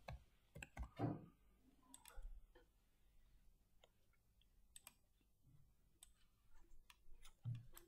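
Faint, scattered clicks of a computer mouse in near silence, a dozen or so spread irregularly.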